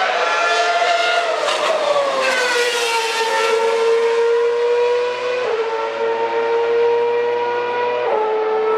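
2012 Formula 1 cars' 2.4-litre V8 engines, very loud at the trackside. The engine note drops over about two seconds as the cars slow, then holds and climbs slowly, with a quick gearshift step about halfway through and another near the end.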